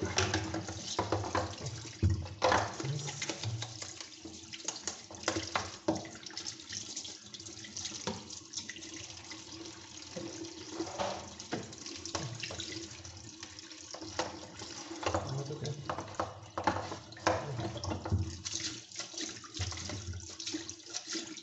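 Water from a tap running into a bathroom sink as the plastic media baskets and filter sponges of a Fluval 306 canister filter are rinsed and scrubbed under it, with scattered knocks and clatter of plastic handled in the basin.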